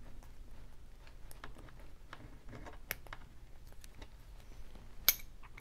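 Faint scattered clicks and scratches of a lock pick working the pins of a brass-body Wilson Bohannon padlock under a tension wrench, with one sharper, louder click about five seconds in as the lock opens.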